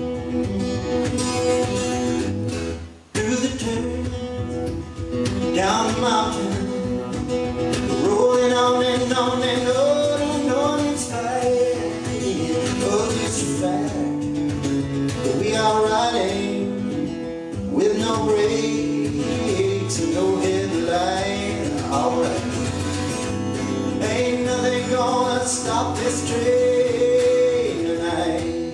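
A man singing a folk song into a microphone while playing an acoustic guitar, with a brief break about three seconds in.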